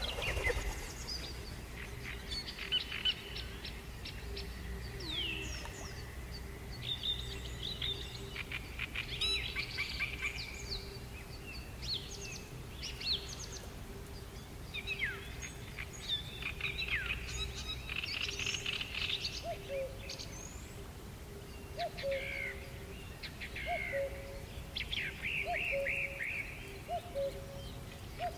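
A chorus of wild birds chirping and singing: many short calls and quick trills overlapping. From about two-thirds of the way through, a lower call repeats a short note roughly once a second. Underneath runs a faint steady hum.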